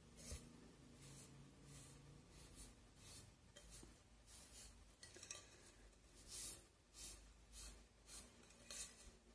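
Faint, repeated wiping strokes of a damp cloth rubbed over a painted vase, about one or two strokes a second, taking off excess dark finish to leave an aged look.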